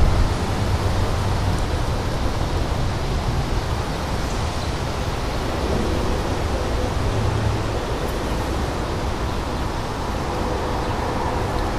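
Gusty thunderstorm outflow wind, with some rain, rushing steadily and buffeting the microphone with low rumbles that swell near the start and again about seven seconds in.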